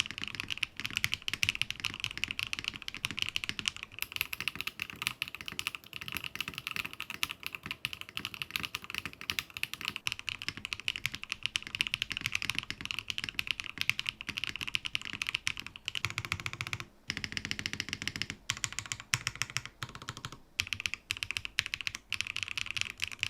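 Eave65 gasket-mounted mechanical keyboard being typed on quickly and continuously, a dense run of keystroke clacks with a short pause about seventeen seconds in.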